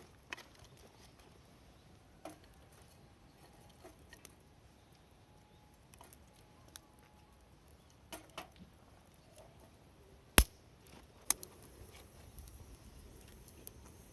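A few scattered sharp clicks and light knocks of small objects being handled, the loudest about ten seconds in, over a quiet background.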